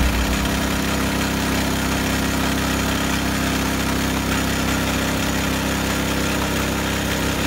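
Small single-cylinder gas engine of a Hudson bandsaw sawmill running steadily under load as the band blade cuts along a log.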